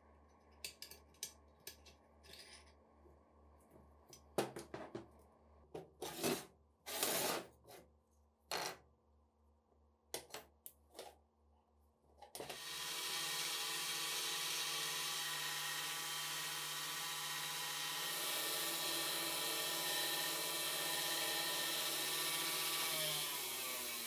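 Scattered clicks, taps and scrapes of steel parts handled on a metal workbench. About twelve seconds in a belt grinder starts and runs steadily with a motor whine, then winds down near the end.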